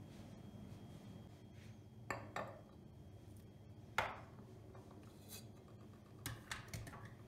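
Kitchen utensils and dishes being handled: a handful of light clinks and knocks, the sharpest about four seconds in and a quick cluster of three or four near the end.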